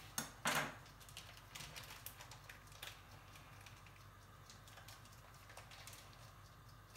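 Small knocks and clicks of hands handling food on a kitchen counter. Two sharper knocks come near the start, then scattered light ticks that die away by about halfway.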